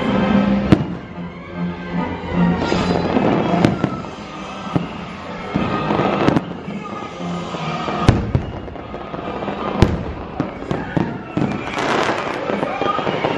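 Aerial fireworks bursting: single sharp bangs every two or three seconds, then a rapid run of crackles near the end, over music.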